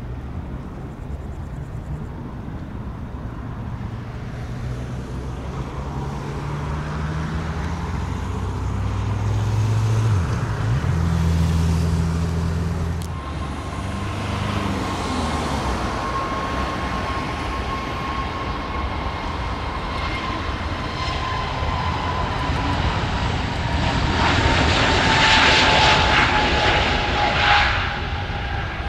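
Airbus A320neo jet engines running up to takeoff thrust as the airliner rolls along the runway: a whine that slides slowly down in pitch as the aircraft passes, with a low drone in the first half, building to its loudest near the end.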